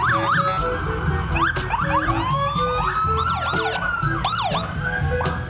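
Several police sirens sounding at once, overlapping wails and quick yelps rising and falling in pitch, over the low rumble of the motorcade's engines.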